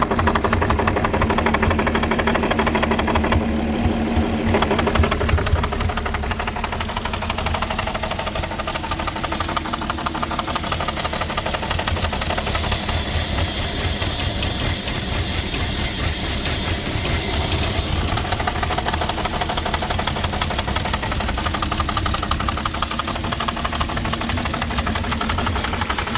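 Porsche Cayenne 3.2-litre V6 petrol engine idling cold and running rough, which the owner puts down to a misfire or a vacuum leak. It drops slightly in level about five seconds in, and a high hiss joins it for several seconds in the middle.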